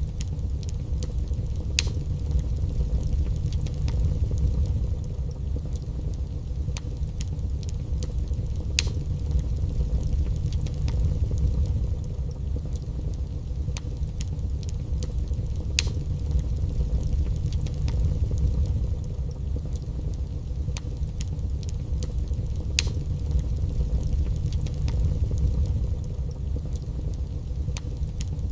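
Wood fire burning in a fireplace: scattered sharp crackles and pops over a steady low rumble.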